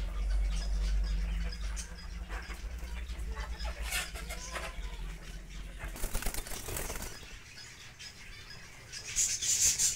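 Caged birds fluttering and flapping their wings, with rustling and scattered clicks over a low rumble, and bursts of high-pitched chirping near the end.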